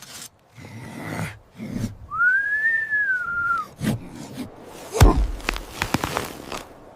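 A single whistled note, about a second and a half long, that rises and then falls back. About three seconds later comes a heavy low thud, followed by scattered clicks and rustling.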